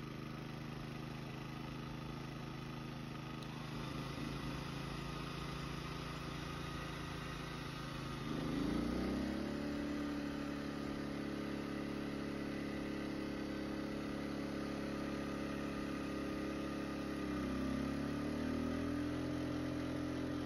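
Westinghouse WH2200iXLT inverter generator's 79cc engine running steadily in efficiency mode under a heat-gun load. About eight seconds in, the engine speed climbs quickly and holds at the higher speed, with a brief dip and recovery near the end. It keeps running under load without shutting down, now that the dirty emulsion tube has been cleaned and the spark plug regapped.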